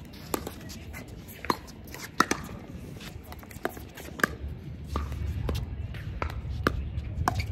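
Pickleball paddles striking the hollow plastic ball: a string of sharp pops at uneven intervals, some louder than others, over a low background rumble.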